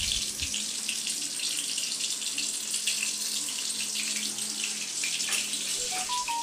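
Water running steadily from a tap, a continuous hiss.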